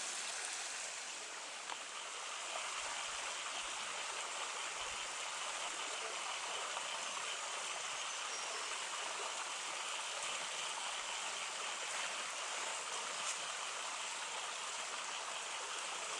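Small creek running over rock slabs into a pool: a steady, even rush of water.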